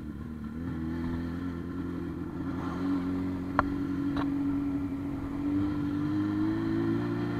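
Motorcycle engine running at a steady pace, its note edging up slightly in the second half, with two short clicks near the middle.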